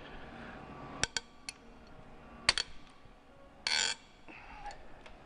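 Sharp metallic clicks and clinks of a socket and steel cylinder head bolts being worked and handled on an engine head, in pairs about a second and two and a half seconds in, with a short noisy burst lasting about a third of a second a little before the four-second mark.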